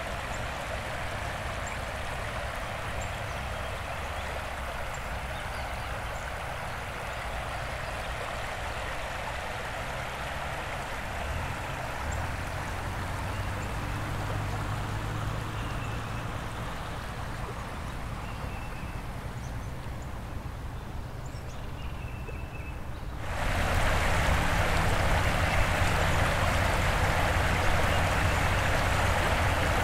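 Floodwater rushing and gurgling steadily as it pours across a road. About three-quarters of the way through, the rush abruptly becomes much louder.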